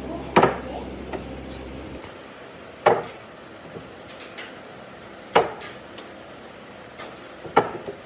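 Four sharp knocks on wood, evenly spaced about two and a half seconds apart, each with a short ring. A low steady hum stops about two seconds in.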